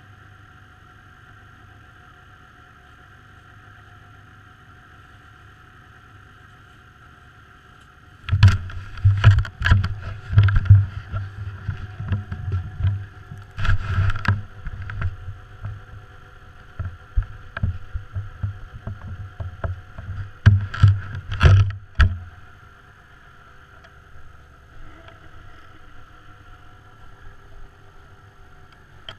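Snowmobile engine idling steadily. From about eight seconds in until about twenty-two seconds, loud irregular knocks and rubbing sit on top of the idle, as from the camera being handled.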